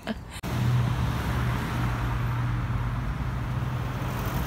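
Road traffic on a town main road: a steady wash of car noise with a low engine hum underneath.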